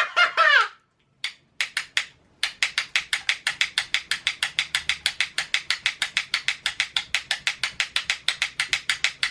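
A few separate clicks, then a fast, even run of sharp mechanical clicks, about seven a second.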